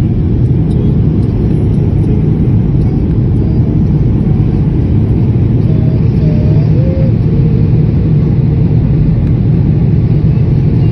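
Steady low rumble of cabin noise inside a Boeing 787-8 airliner in descent, the engines and airflow heard from a window seat.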